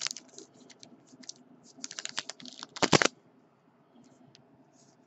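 Thin plastic crackling and clicking as a trading card in a soft plastic sleeve is worked into a rigid plastic top loader. The crackles bunch up about two seconds in and end in one sharp, loud click about three seconds in, with a few faint ticks after.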